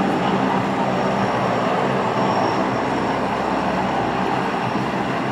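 A large military transport aircraft's turbine engines running steadily as it maneuvers on the ground, with a low hum and a faint high whine.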